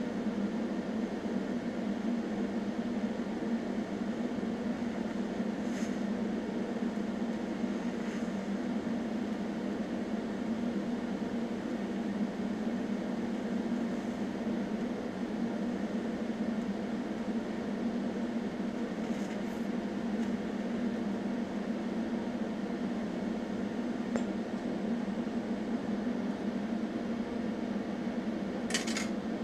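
TIG welder running with a steady hum while the arc lays a bead on cast iron with EZ Weld filler rod. Near the end a couple of sharp clicks come as the arc goes out.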